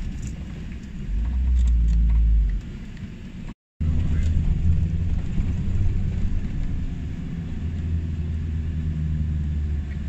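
A car driving along a road, heard from inside: a steady low rumble of engine and tyres. The sound cuts out completely for a moment about three and a half seconds in.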